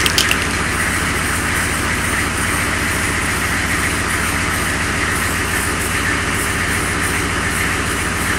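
6.2-litre V8 diesel engine idling steadily with an even, rapid clatter. A few sharp clicks come right at the start.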